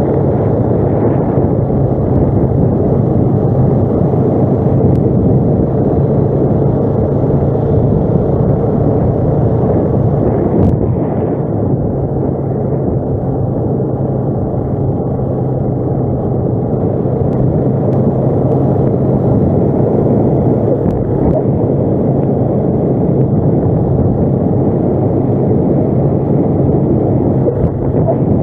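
ATV engine running steadily while riding, a constant low drone with rumble and some wind on the microphone.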